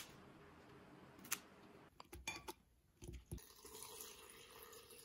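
Faint kitchen sounds: a couple of sharp snips of kitchen scissors cutting water spinach stems, then a few soft knocks.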